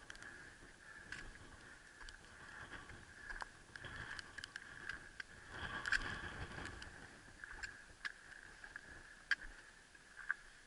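Footsteps and scuffs on rock and loose gravel during a scramble, with scattered sharp clicks and scrapes of a hand against the rock and a busier scuffle about six seconds in. A steady faint high hum lies underneath.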